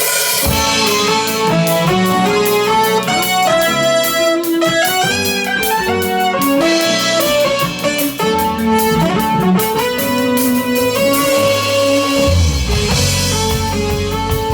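A band playing, with guitar and keyboard over drums keeping a steady cymbal beat, and no singing. Deep bass notes come in strongly near the end.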